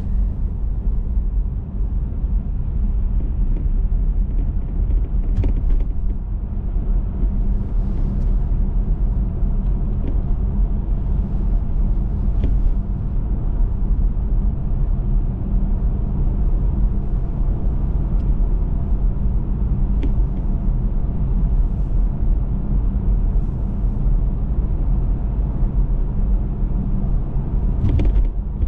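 Car driving at steady speed: a constant low rumble of road and engine noise, with a few faint light knocks, the strongest near the end.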